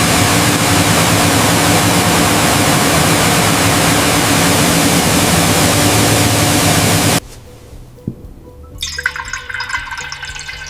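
Loud, steady rush of spraying water that cuts off abruptly about seven seconds in. It is followed by quieter background music with light trickling and dripping.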